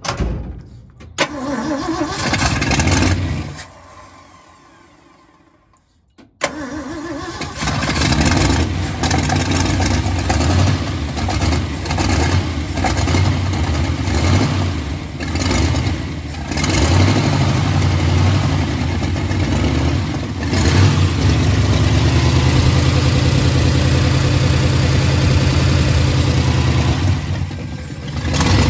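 Freshly rebuilt Ford 360 FE V8 running for a few seconds and dying away, then starting again about six seconds in and running steadily, its speed rising and falling a little before settling into an even idle. Its idle has just been adjusted at the carburettor.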